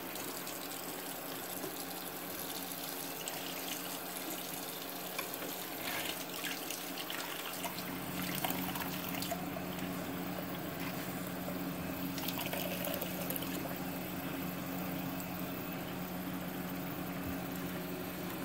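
Bathroom sink tap running, a steady stream of water splashing into and filling the basin.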